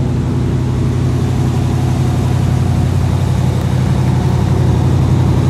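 Chevrolet El Camino SS V8 idling steadily, a low rumble from the exhaust heard close to the tailpipe.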